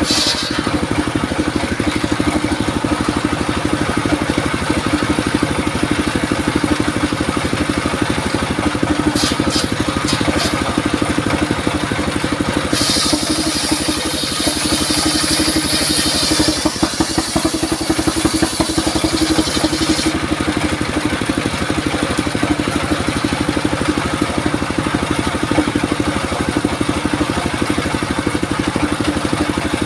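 28 hp diesel engine running steadily, driving a mobile sawmill's circular saw. From about 13 to 20 seconds in, the blade cuts lengthwise through a log with a high hiss over the engine drone.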